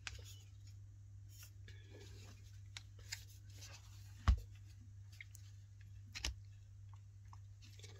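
Small clicks and knocks from the jigsaw's blade-release lever and metal shoe being worked by hand, the loudest a single sharp click about four seconds in, over a low steady hum.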